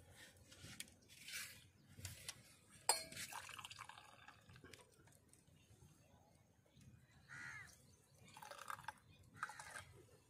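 Tea being poured from a steel ladle into steel tumblers: faint splashing and trickling of liquid in short bursts, with one sharp metallic clink about three seconds in that rings briefly.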